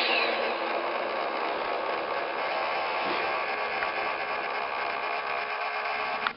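Simulated diesel engine sound of an MTH DCS model locomotive, played from its onboard speaker during the engine shutdown sequence. It runs steadily with a click at the very start, then cuts off suddenly near the end.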